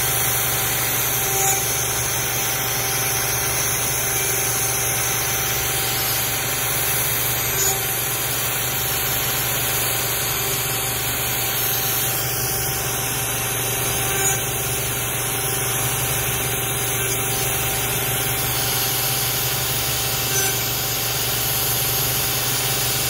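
CNC router spindle running a 1/8-inch end mill through 1/8-inch 6061 aluminum, rest-machining small internal corner radii: a steady hum and hiss with a small swell about every six seconds.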